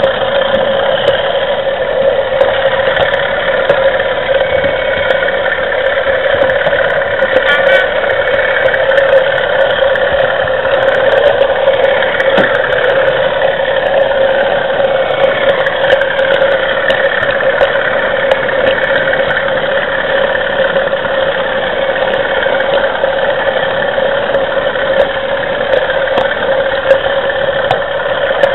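OO-gauge model locomotive's DCC sound decoder playing a British diesel engine sound through its small speaker: a steady, unbroken drone.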